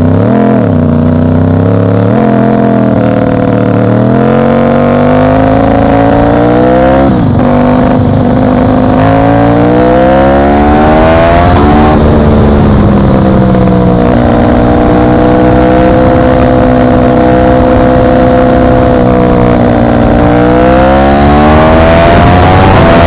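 Motorcycle engine pulling through the gears: its pitch climbs, drops sharply twice as it shifts up, holds steady for several seconds at a cruise, then climbs again near the end. Steady wind and road noise lies underneath.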